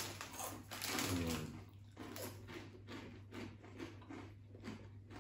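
Crunchy corn-snack crisps being bitten and chewed, a series of short crackly crunches, mixed with the crinkle of a plastic crisp packet being handled.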